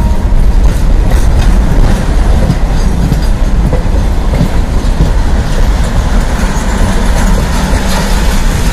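Container freight wagons passing close by, their wheels rumbling and clattering over the rails in a loud, continuous run.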